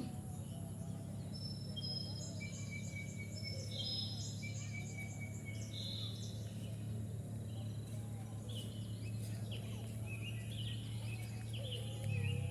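Outdoor evening ambience at a rice field: birds calling with short, level whistled notes and quick chirps, coming thicker near the end. Underneath are a steady low rumble and a faint, continuous high insect drone.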